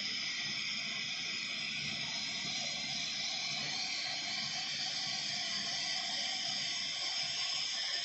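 Steady hissing noise without breaks or pauses.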